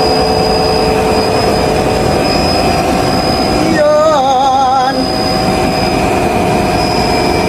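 Large refrigeration compressor running after an O-ring leak repair: a loud, steady machine hum with several steady tones. A short wavering, voice-like sound cuts in about four seconds in.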